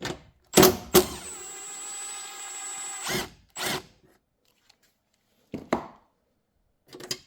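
A power drill-driver runs steadily for about two seconds, unfastening a bolt from the car's front-end parts. A couple of sharp knocks come just before it, and scattered clicks and knocks of tool handling follow.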